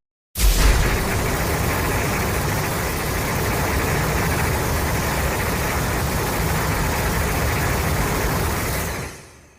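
Godzilla film sound effect: a steady rumbling hiss that starts abruptly after a short silence, holds even for about eight seconds, then fades out near the end.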